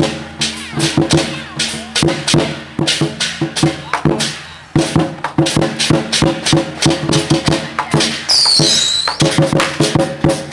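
Temple-procession percussion band: drums, gongs and cymbals struck in a fast, dense rhythm over a ringing metallic tone, with a short pause about four and a half seconds in. Near the end a high, wavering whistle-like tone sounds briefly over the beat.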